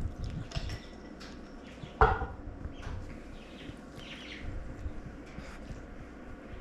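An animal's short burp about two seconds in, among faint chirps and small clicks.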